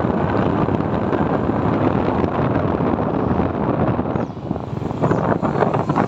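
Wind rushing over the microphone of a moving motor scooter, mixed with the scooter's running and road noise. It eases off briefly a little after four seconds in.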